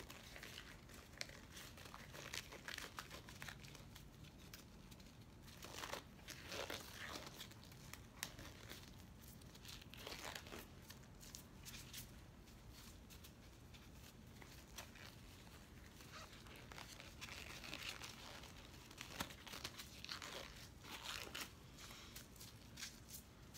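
Disposable gloves being pulled on and worked down over the fingers: faint, irregular rustling and crinkling of the thin glove material, with small clicks now and then.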